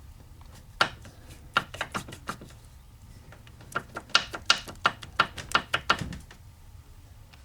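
Mercedes-Benz OM616 four-cylinder diesel engine turned over by hand, giving sharp irregular knocks: piston slap from the No. 3 piston, one side of whose skirt below the gudgeon pin had broken away. A single knock about a second in, a few around two seconds, then a quick run of knocks from about four to six seconds.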